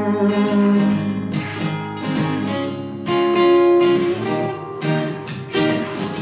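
Acoustic guitar strummed, several chords struck about a second apart and left to ring.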